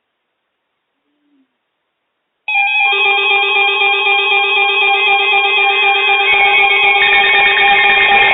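Silence, then about two and a half seconds in a loud electronic alert sound starts abruptly: several steady held tones with a rapidly blinking higher pattern, like a ringtone, shifting slightly around six seconds in.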